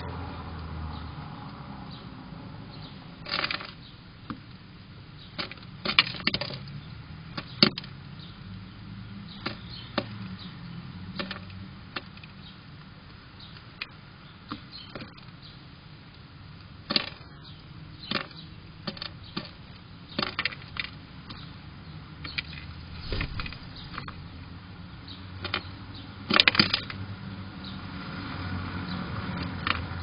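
Mourning dove pecking at seed on a plastic window-feeder tray: irregular sharp taps and clicks, some in quick little runs, over a low steady hum.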